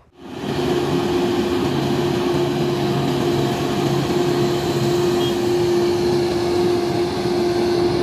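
Engine of a Grove GMK5300L all-terrain mobile crane running steadily as the crane drives, a continuous drone with a held hum, fading in about half a second in.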